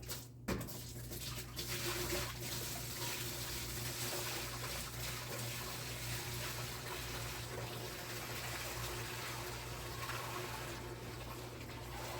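Raw milk being poured into a small bulk cooling tank: a steady pour and splash that begins about a second in, over a steady low hum. There is a single knock just before the pour starts.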